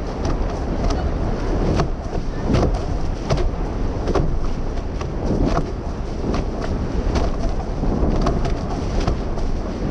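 Racing catamaran sailing fast through chop: water rushing and splashing along the hulls, with frequent sharp slaps as the hulls hit the waves, over a steady rumble of wind on the microphone.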